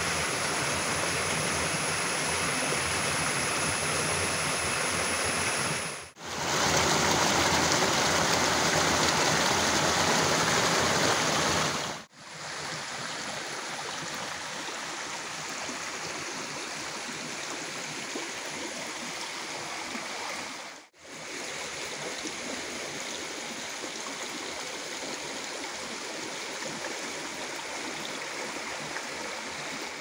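Shallow forest stream running and gurgling over rocks, a steady rush of water. It drops out briefly three times, changing loudness at each break, and is loudest for a few seconds after the first break.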